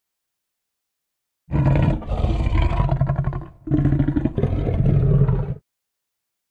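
Two deep, raspy kaiju monster roars, a creature sound effect. The first starts about a second and a half in and lasts about two seconds. The second follows right after a brief break and is about as long.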